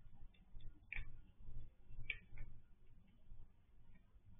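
Tabby cat eating from a bowl inside a wire cage trap, chewing with a few sharp clicks, the clearest about one and two seconds in.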